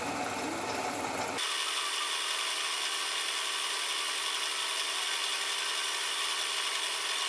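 End mill on a Dore Westbury milling machine cutting metal as it rounds off the end of a connecting rod on a rotary table: a steady machining noise with a faint steady hum. The sound changes abruptly about a second and a half in, as its lower part drops away.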